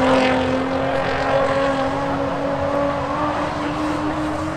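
Drift car engine held at high revs through a slide, one steady note that creeps slowly higher in pitch.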